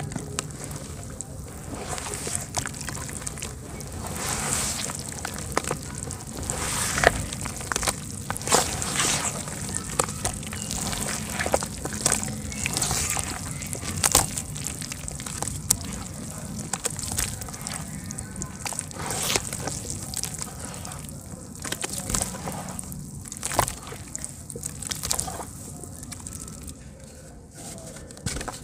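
Hands squeezing and kneading wet dirt mixed into mud in water in a plastic basin: continuous wet sloshing and squelching, with many small crackles and pops.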